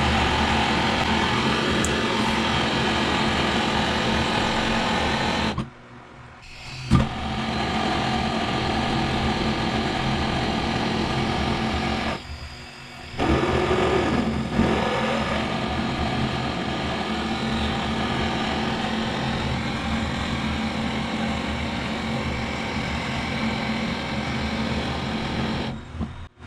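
Handheld butane gas torch burning with a steady hissing flame while heating a copper pipe joint. The flame cuts out twice briefly, about six and twelve seconds in, with a sharp click as it comes back after the first gap.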